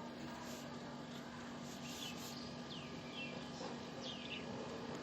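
Faint scattered bird chirps, several short calls sliding down in pitch, over a steady low hum and background hiss.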